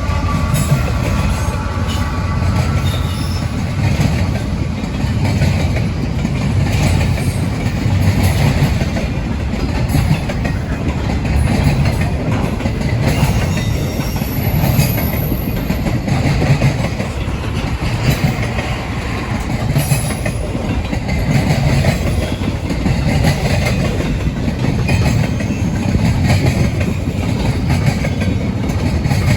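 Freight train cars rolling past, wheels clacking over the rail joints in a steady rhythm under a heavy low rumble. About halfway through there is a faint, brief high wheel squeal.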